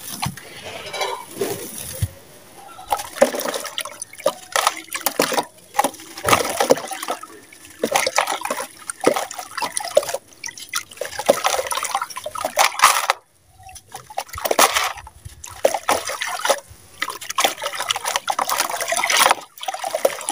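Lumps of gritty sand-cement crumbled by hand, the grit trickling and falling into a basin of water in uneven bursts, with a short pause about two-thirds of the way through.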